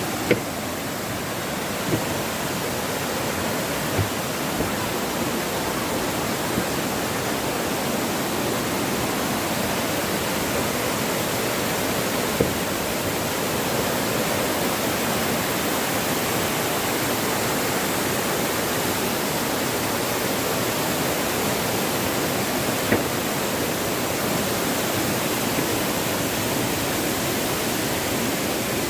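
Steady rush of a waterfall, with a few brief sharp clicks on top.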